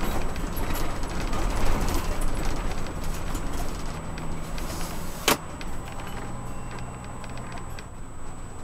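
An RV driving slowly on a paved road, heard from inside the cab: a steady low engine and road rumble with small rattling ticks, and one sharp click a little past halfway.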